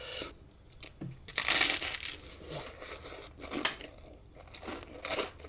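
Close-miked eating: a mouthful of baked beans, mushroom and bacon being bitten and chewed, with a noisy burst a little over a second in and a few sharp clicks later on.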